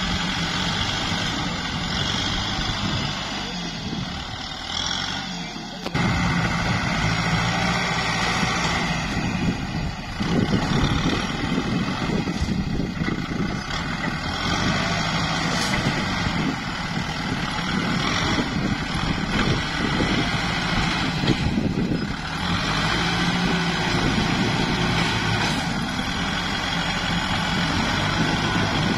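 A farm tractor's diesel engine running steadily as the tractor pulls a disc plough through mud. The sound steps up suddenly in loudness about six seconds in.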